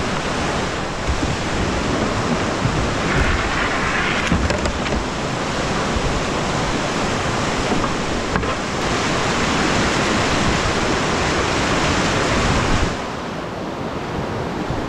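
Steady loud rush of whitewater on a steep creek's cascades, swelling in places and easing slightly about two seconds before the end.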